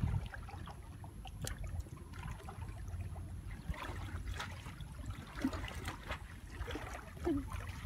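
Light splashing and trickling water as a wet cast net is gathered up by hand out of shallow water, with scattered small splashes and drips.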